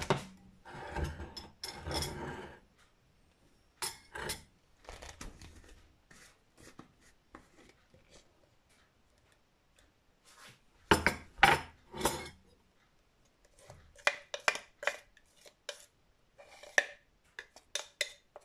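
A metal spoon scraping and clinking against the glass jar of a small electric chopper and a ceramic bowl, scooping out a blended chili, garlic and coriander-root paste. The clinks come in several short spells, the loudest a little after halfway.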